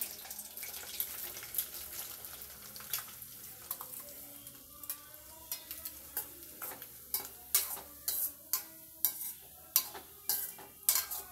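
Steel spoon stirring boiled eggs in dry masala powder in a stainless steel kadai, clinking and scraping against the pan. The sharp clinks come more often in the second half, about one or two a second.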